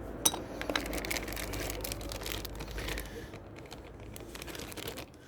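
Handling noise from a plastic model kit's packaging: light clicks and faint rustling of plastic bags and sprues being moved about.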